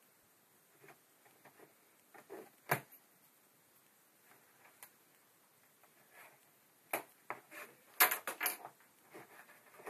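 Cardboard box being handled and opened: faint rustling broken by sharp knocks and taps, one about three seconds in, another near seven seconds, and the loudest, a quick cluster of clatter, about eight seconds in.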